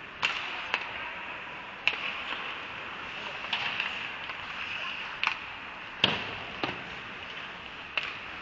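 Ice hockey play in a rink: sharp clacks of sticks and puck, about eight of them at irregular intervals, with the heaviest knock about six seconds in, over the steady scraping hiss of skates on the ice.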